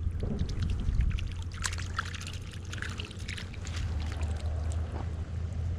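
Water dripping and trickling, with scattered small clicks and splashes over a steady low rumble.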